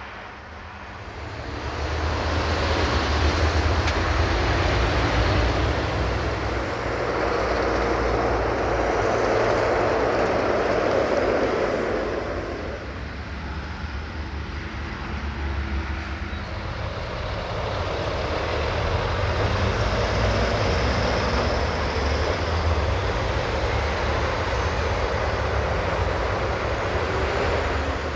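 Heavy diesel vehicles running and passing, a low engine rumble with road or rail noise. It swells twice, falling away quickly about twelve seconds in and again at the end.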